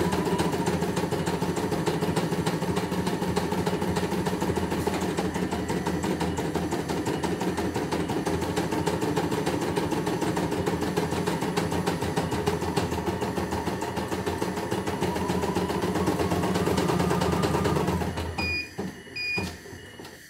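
CNY E900 computerised embroidery machine stitching steadily, its needle running in a fast, even rhythm. About two seconds before the end it stops and gives two short electronic beeps, the signal to change thread.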